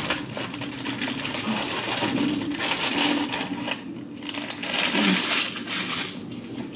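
Paper fry sleeve crinkling and rustling as it is handled and emptied of sweet potato fries, in two long spells with a short break about four seconds in.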